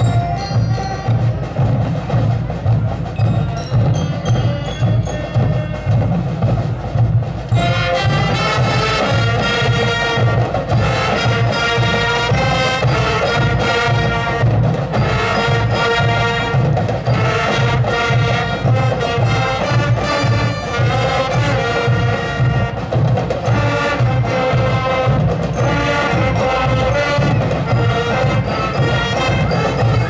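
School marching band playing: drums keep a steady beat, with scattered high ringing notes at first, then the full band comes in with sustained melody about seven seconds in.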